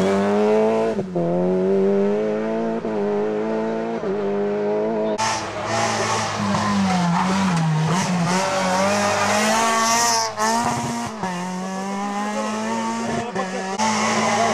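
Rally car engines revving hard through a bend, one car after the other, the second a Renault Twingo rally car. The engine pitch climbs repeatedly and drops back briefly in between, as the cars change up through the gears.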